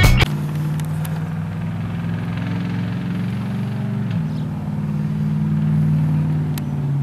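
A string trimmer's small two-stroke engine idling steadily, with its pitch dropping slightly about four seconds in.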